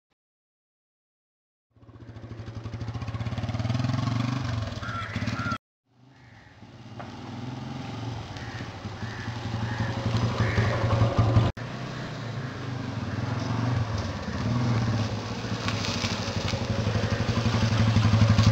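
Silence for the first couple of seconds, then a motorcycle engine running and getting louder as the bike rides closer. The sound breaks off abruptly twice and picks up again.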